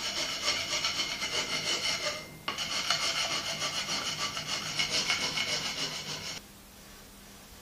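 A hand tool rubbing along a steel lathe way bar: steady metal-on-metal rasping in two long spells with a brief pause about two seconds in, stopping about a second before the end. It is the hand-fitting of the ways, working down high spots to make the steel surfaces match flat by the Whitworth three-surface method.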